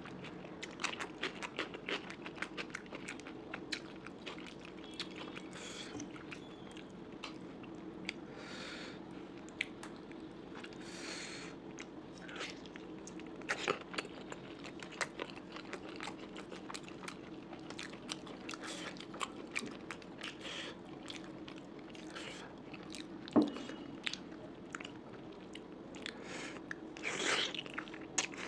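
Close-miked chewing and biting of curry and rice, with many sharp crunches and mouth clicks and a few brief hissy swells; one loud click near the end stands out.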